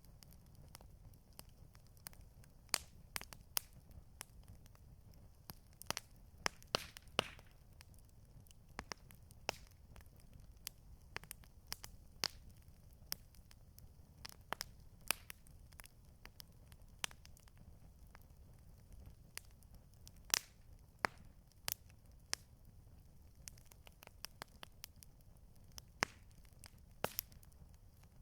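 Wood campfire crackling, with irregular sharp pops and snaps, a few a second and in a quick cluster about six to seven seconds in, over a steady low rumble.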